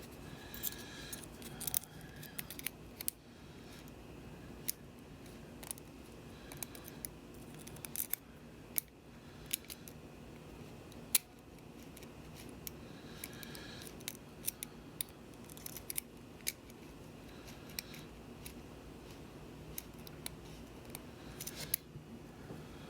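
Lock picks working the pins of a Euro profile cylinder lock: irregular small metallic clicks and scrapes, a few sharper ticks among them, over a faint steady hum.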